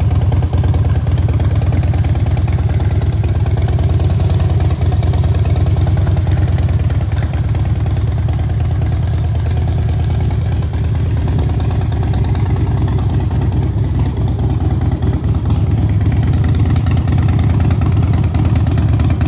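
Harley-Davidson FXSTi Softail Standard's air-cooled V-twin engine idling steadily, with its loping exhaust pulse and no revving.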